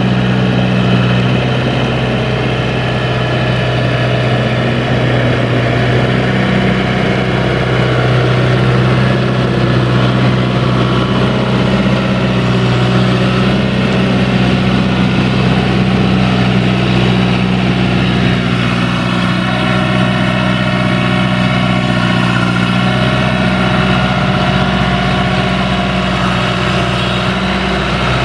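John Deere tractor's diesel engine running steadily and loud under the load of a plough working through wet, muddy ground.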